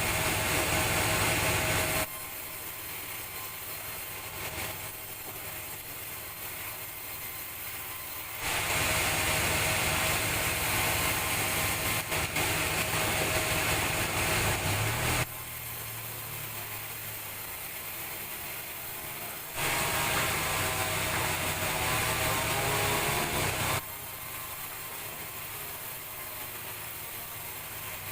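Sawmill saw running and cutting through timber, a steady mechanical noise with a thin steady tone. It switches abruptly between louder and quieter stretches several times.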